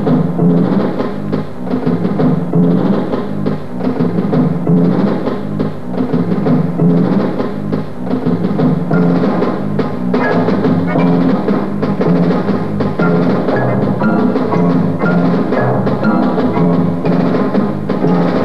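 Percussion-led television theme music, with a steady beat of drums and timpani. Higher pitched notes join the beat about ten seconds in.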